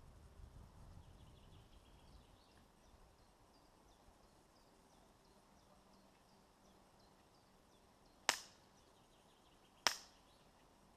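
Airsoft gun firing two single shots about a second and a half apart, each a sharp crack, late in an otherwise quiet stretch.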